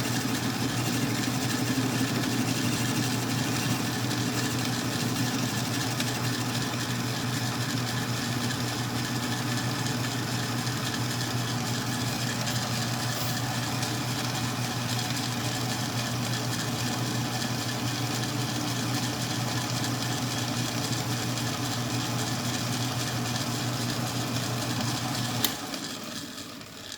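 Metal lathe running steadily with a low motor hum. About 25 seconds in, a sharp click as it is switched off, and the machine spins down.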